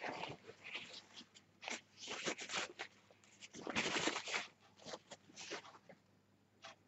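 Kitchen paper towel rustled and crumpled in the hands: irregular crackling in short bouts, loudest about four seconds in.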